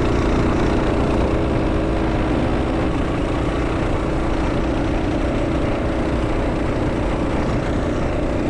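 Stock Predator 212 single-cylinder engine on a Coleman B200R mini bike running steadily while riding, with wind rumbling across the microphone. The engine note eases slightly about two and a half seconds in.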